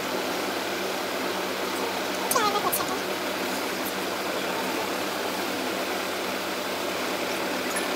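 Steady background hiss with a faint low hum, like a room fan or air conditioner, and a brief voice about two and a half seconds in.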